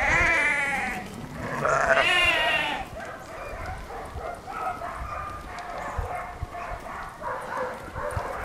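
Sheep bleating: two loud, quavering bleats in the first three seconds, then fainter bleating from the mob.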